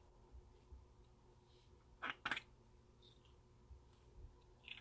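Quiet room tone broken by a quick pair of sharp clicks about two seconds in and another near the end: a small clear plastic container being handled as sprinkles are tipped onto slime.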